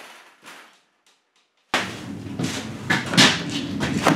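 Knocking and rattling on the plastic door of a portable toilet, starting abruptly a little under two seconds in with repeated knocks and clatter. The door is locked, which is called a common prank.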